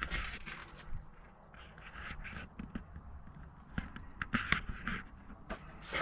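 Irregular scraping, rustling and light knocks of hands handling material and parts during installation work.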